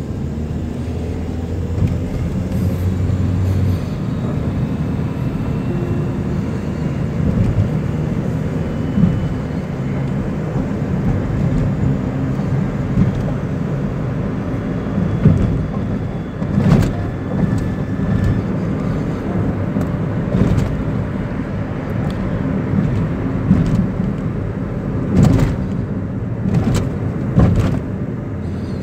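Car driving, heard from inside the cabin: a steady engine and road rumble, with a few short sharp knocks in the second half.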